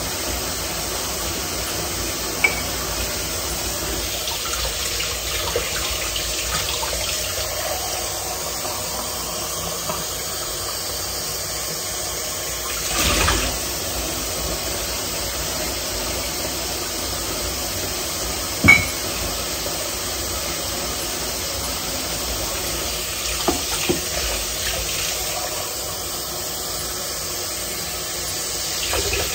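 Tap water running into a kitchen sink while dishes are washed, with a few clinks and knocks of dishes against each other; the loudest knock comes about two-thirds of the way through.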